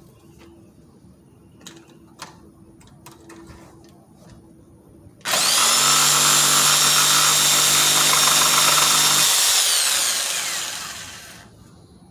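Corded jigsaw switched on about five seconds in and cutting through the wooden edge of a table top for about four seconds, a loud steady motor whine over the rattle of the blade. The trigger is then released and the motor winds down, falling in pitch over about two seconds. Before it come a few light clicks and knocks as the saw is handled.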